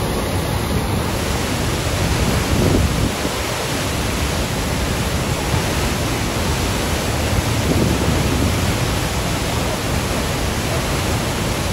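Muddy flash-flood water rushing and pouring over rocks in a loud, steady rush.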